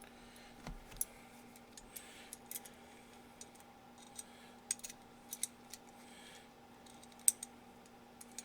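Small steel parts of an M1895 Nagant revolver clicking and scraping at irregular intervals as a part is worked into its grooves in the frame, with one sharper click near the end. A faint steady hum underneath.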